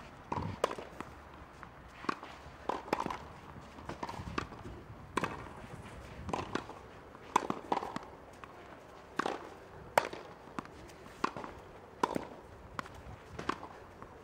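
Tennis rally: sharp pops of the racket strings striking the ball, mixed with the ball bouncing on the clay court, roughly one impact a second.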